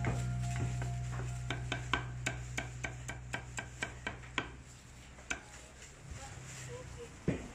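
Cleaver chopping roast meat on a thick round wooden chopping board: quick knocks about three a second, thinning out after about four and a half seconds.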